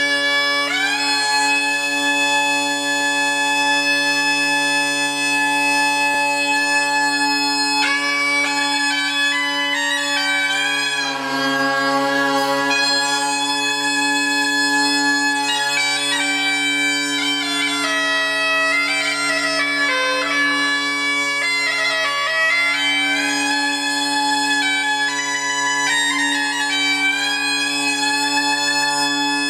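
Bagpipes playing a tune: steady low drones sound without a break under the chanter's melody.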